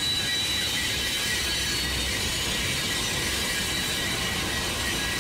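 Double-stack container train moved by an EMD SD40JR battery-electric locomotive rolling along curved track, its steel wheels giving a steady high squeal.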